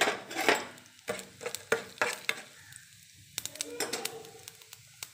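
Tempering seeds (chana dal, urad dal and cumin) sizzling in hot oil in a steel bowl, with many irregular sharp crackles and pops.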